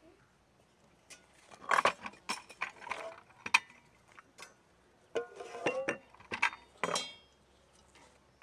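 Glass tea glasses and cut-glass saucers clinking and knocking against each other, the tray and the table as they are set out, in two clusters of clinks; some clinks in the second cluster ring briefly.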